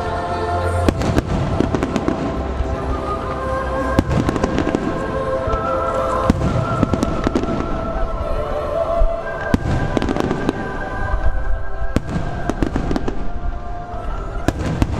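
Fireworks finale: a rapid, continuous barrage of firework bursts and bangs, over music with held chords.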